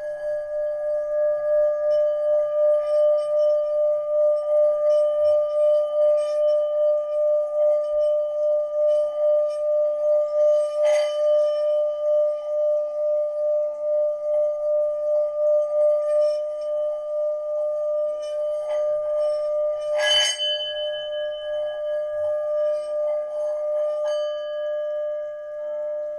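Metal singing bowl, held on the palm, rubbed around its rim with a mallet: a steady, sustained ringing tone with a gentle pulsing wobble. The mallet knocks against the rim twice, about ten and twenty seconds in, and near the end the rubbing stops and the bowl rings on.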